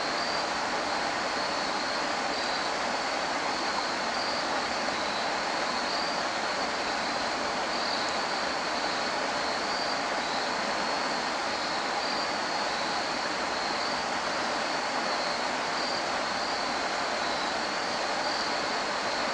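Shallow stream water flowing steadily, a continuous even rush of running water.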